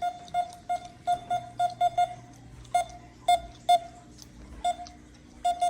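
Metal detector beeping in short, irregular bursts of one mid-pitched tone, at times several a second, as it is swept over a target and picks up metal.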